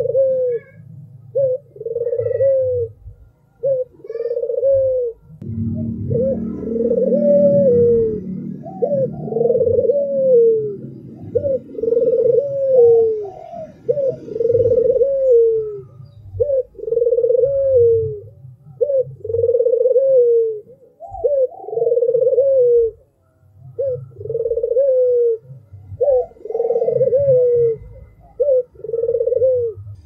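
White red-eyed domestic Barbary dove (puter albino) cooing over and over: a long run of short, arched coos at about one a second.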